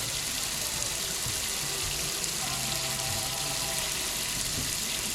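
Water running steadily from a newly installed Delta Touch kitchen faucet into the sink, an even hiss.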